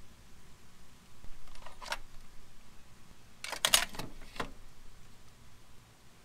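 Small metal parts clinking as bolts and a steel bracket are handled at a parts tray: a few light clinks, then a loud quick cluster of clatters about three and a half seconds in, and one more just after.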